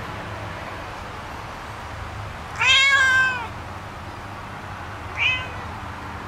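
A seal-point cat meowing twice. The first, about two and a half seconds in, is a long, loud meow that rises slightly and then falls away. A short, quieter meow follows about two seconds later.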